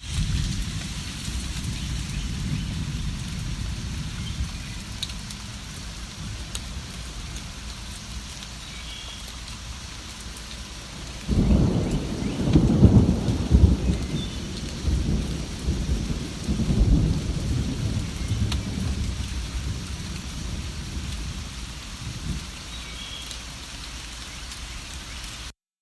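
Steady rain falling, with a low thunder rumble that breaks in suddenly about halfway through, rolls on in swells for several seconds and fades. A few faint, brief bird chirps sound over the rain.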